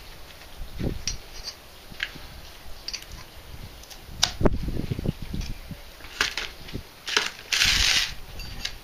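Copper pipe and fittings being handled and pushed together: scattered knocks and light clinks of copper, with a short scraping sound near the end.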